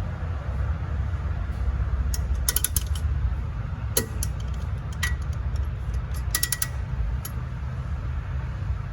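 Sharp metallic clicks and short rattling runs of a ratchet and socket working on a fastener, several separate groups, over a steady low rumble.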